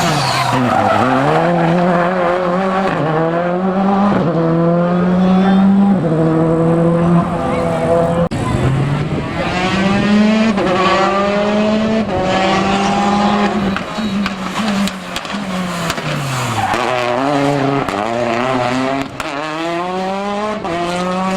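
Rally car engine at full throttle, revving up and shifting up through the gears again and again. The revs fall sharply twice, about a second in and again around sixteen seconds, as the car slows for a bend before accelerating hard again.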